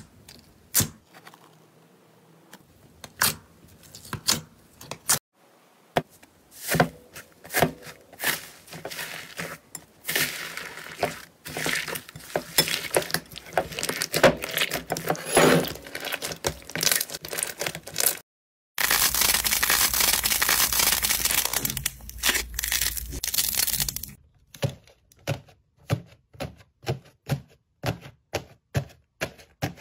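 Hands working slime: sticky clicks as clear glitter slime is poked, then a long stretch of dense crackling and squishing as a soft slime is kneaded, and near the end crisp cracks about three a second as a dried slime crust is broken into flakes.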